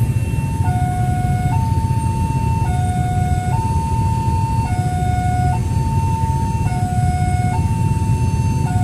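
Electronic warning siren of a railway level crossing sounding a two-tone hi-lo alarm, switching between a higher and a lower pitch about once a second, which signals that a train is approaching with the barriers down. A steady low rumble runs underneath.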